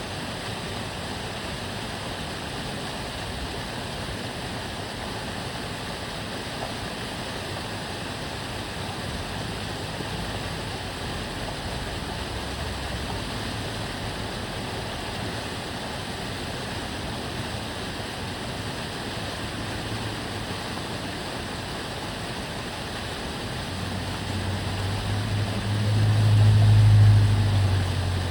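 Stream water running steadily. Near the end a car passes, its low engine hum swelling to the loudest point and then fading.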